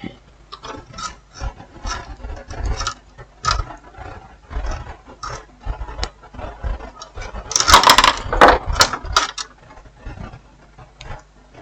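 Small hand tools working on a TV's push-button circuit board while its faulty tactile switches are being removed: scattered light clicks and scrapes, with a louder burst of clatter about eight seconds in.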